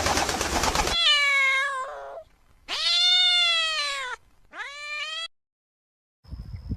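A cat meowing: a harsh, raspy cry, then three drawn-out meows that rise and fall in pitch. Low knocking sounds start near the end.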